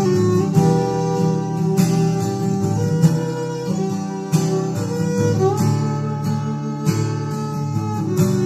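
Instrumental music: plucked, guitar-like notes over held chords.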